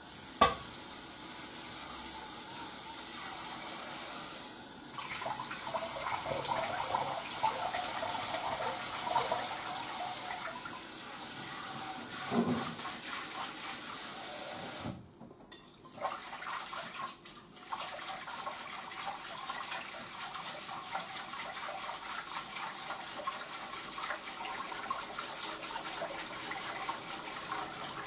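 Water from a kitchen tap running into a pot in the sink while hands work inside it, splashing. The flow breaks off briefly a few times, and a sharp knock sounds right at the start.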